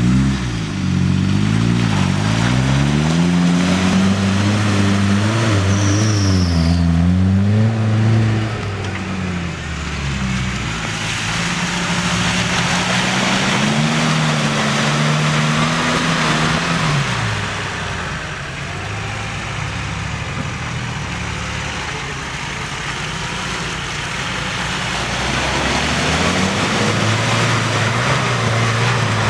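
Engines of off-road 4x4s (Daihatsu Feroza, Suzuki Jimny, Lada Niva), revving up and down one after another as they drive through a muddy pit, with mud and water spraying from the tyres. The revs rise and fall repeatedly in the first half, and another engine pulls hard near the end.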